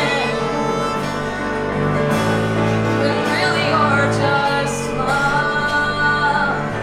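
Female vocalist singing a musical theatre song into a handheld microphone, accompanied by a live band.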